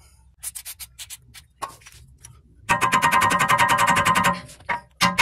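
A hammer strikes a steel pick held against the CV axle end in the wheel hub: a quick run of ringing metallic blows at about ten a second, working the axle splines loose from the hub. A second run starts near the end.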